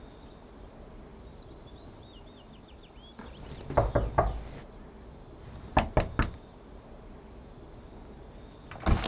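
Knocking on a wooden door: three quick raps, then three more about two seconds later, and one more sharp knock or clunk near the end.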